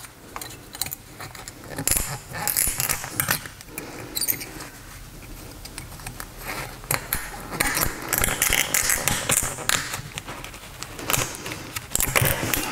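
Irregular light metallic clicks and scraping as thin steel brake pad clips are handled and snapped onto a brake caliper bracket.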